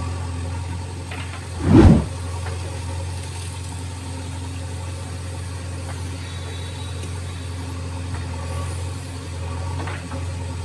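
JCB 3DX backhoe loader's diesel engine running steadily while the backhoe arm digs and lifts a bucket of mud. About two seconds in there is a brief, loud burst of noise over the engine.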